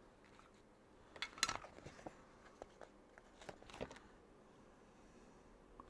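Faint handling noise from small plastic building-brick pieces and sticker sheets as stickers are put on: light clicks and rustles in two short clusters, about a second and a half in and again near four seconds.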